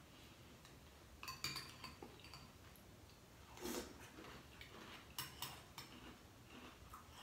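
Spoon clinking and scraping against a cereal bowl as cereal is scooped up, in short clusters of light clicks with one longer, louder sound about halfway.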